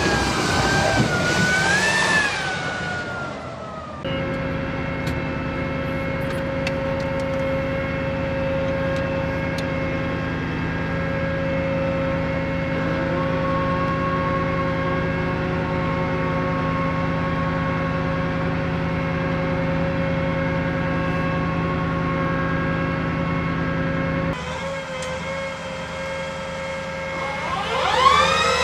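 M270 Multiple Launch Rocket System tracked vehicle: for the first few seconds its diesel engine runs with a wavering pitch as it drives through mud. Then comes a long steady hum with a constant whine, heard inside the crew cab. Near the end a rising whine starts as the launcher drive begins raising the rocket pod.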